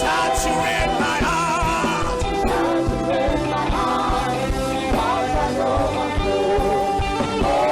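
Gospel worship music: sustained chords over a steady drum beat, with a voice singing short wavering phrases that come and go.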